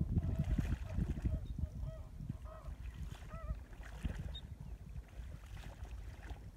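Wind buffeting the microphone in gusty, uneven low rumbles. Behind it comes a faint series of short, honk-like notes, most of them in the first half.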